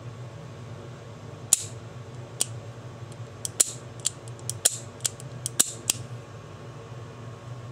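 Colt Official Police .38 Special revolver's action being worked by hand just after reassembly: about ten sharp metal clicks, several in quick pairs, as the mechanism cycles.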